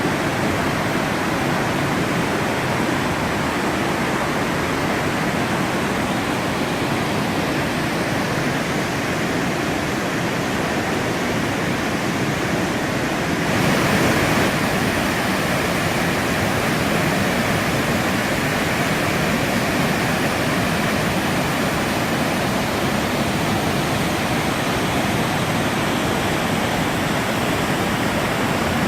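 A 15-foot river waterfall rushing in a steady, loud roar of falling water. It steps up slightly louder and brighter about halfway through.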